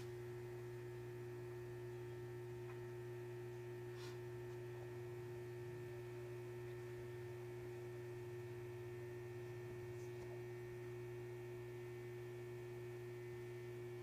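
Whirlpool top-load washer running in its diagnostic test mode: a steady electrical hum, with a few faint clicks.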